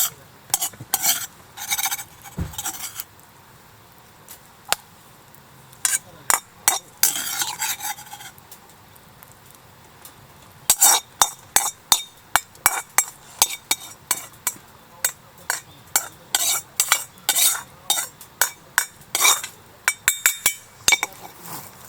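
Metal utensil repeatedly clinking and scraping against a cooking pan: a few short bursts, then dense, irregular clinking from about halfway through.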